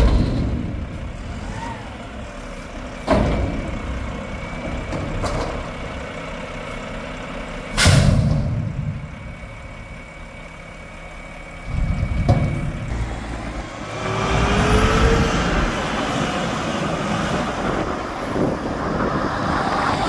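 Mack McNeilus front-loader garbage truck working a steel dumpster, with loud metal bangs at the start, about three seconds in and, loudest, about eight seconds in as the container is shaken out and lowered. From about fourteen seconds the truck's diesel engine revs up with a rising whine.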